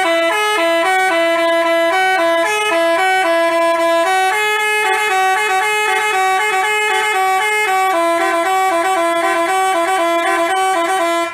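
Basuri telolet multi-tone bus horn playing a loud, quick melody of stepping horn notes, changing several times a second. It cuts off abruptly near the end.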